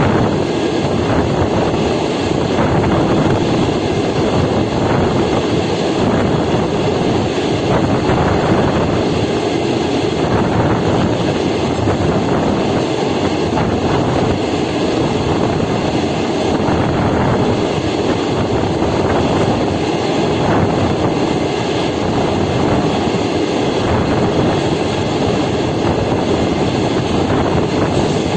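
Train running along the track: a steady, loud rumble of wheels on rails that holds even throughout.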